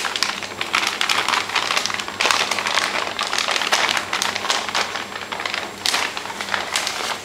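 Clear plastic bag crinkling and crackling as a tripod is pulled out of it, with a dense run of irregular crackles that goes on throughout.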